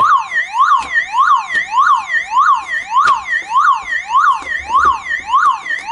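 Battery-backed car security alarm siren sounding on its own internal battery: a loud, continuous warble that sweeps up and down about twice a second.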